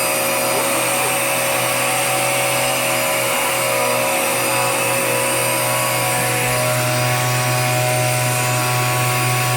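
Dirt Devil Powermax upright vacuum cleaner running steadily, its motor giving a constant whine with a hum beneath it, while the suction at the hose is tested. Suction at the hose is weak because the canister is clogged.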